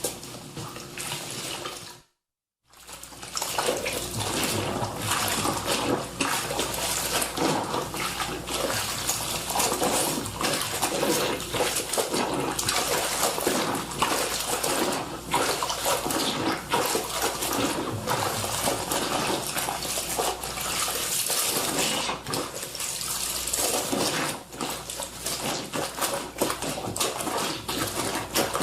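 Clothes being washed by hand: wet fabric scrubbed and wrung in water, with irregular splashing and sloshing strokes. The sound cuts out to silence for about half a second about two seconds in, then carries on.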